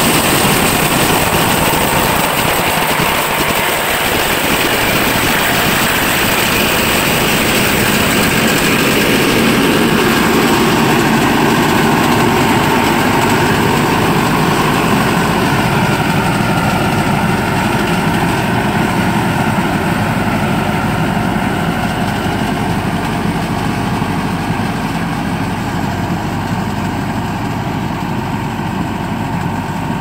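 Self-propelled chili pepper harvester running as it works along the crop rows: a steady engine and machinery noise that grows a little fainter over the second half as the machine pulls away.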